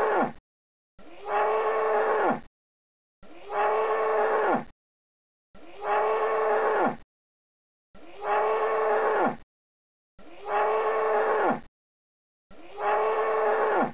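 Grizzly bear call played on a loop: the same drawn-out, pitched call, about a second and a half long and dropping in pitch at its end, repeats six times with dead silence between.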